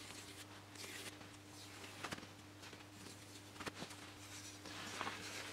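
Small block plane shaving the edge of a 3 mm thick balsa elevator in faint swishing strokes, cutting a single chamfer on its leading edge, followed by a couple of light clicks.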